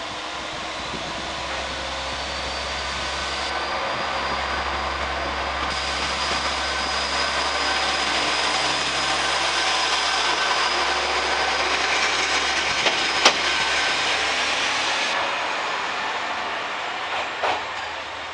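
Diesel railcar pulling out of the station under power, its engine rumble and wheel noise growing louder as it passes close and then fading as it draws away. A high whine rises slowly in pitch, and there is a sharp clack about two-thirds of the way through and another near the end.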